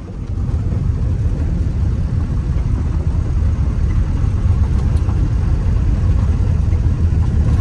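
Steady low rumble of a car's engine and road noise heard inside the cabin while driving.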